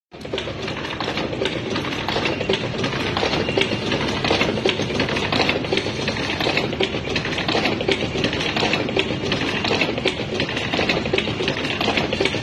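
Automatic electrical transformer assembly machine running: a dense, continuous clatter of rapid clicks and rattles from its mechanisms over a steady running noise.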